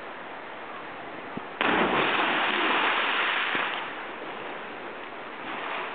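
A person hitting a creek pool after a cliff jump of about 42 feet: a sudden loud splash about a second and a half in, with the rush of spray and churned water lasting about two seconds before it dies away.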